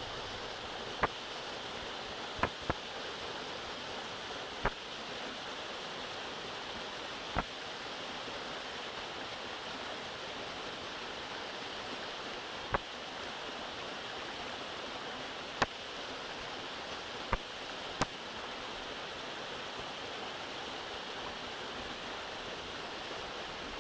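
A small, partly frozen mountain waterfall running over icy rocks, a steady rush of falling water. Sharp single clicks come now and then, about nine in all, mostly in the first two-thirds.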